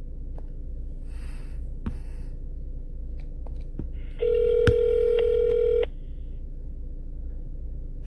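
Telephone ringback tone on an outgoing call: one steady ring lasting about a second and a half, with a sharp click partway through.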